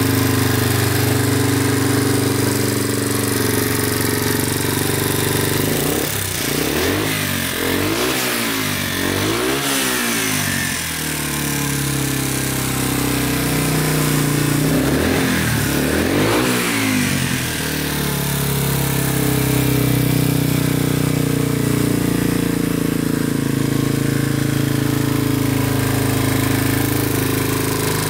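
Yamaha TW125's single-cylinder four-stroke engine idling steadily, revved in a few quick throttle blips about six seconds in and twice more around the middle, then settling back to idle.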